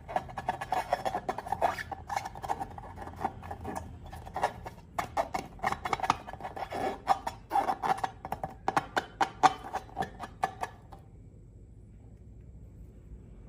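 Slime being squished and worked by hand, a dense run of small wet clicks and crackles that stops about 11 seconds in.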